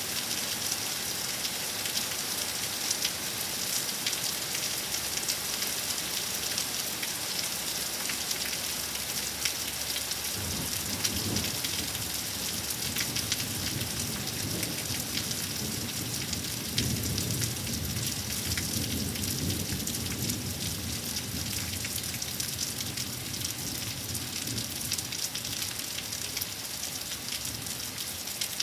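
Rain falling steadily, with many sharp ticks of drops striking close by. About ten seconds in, a low rumble of thunder rolls for roughly ten seconds, swelling and then fading back under the rain.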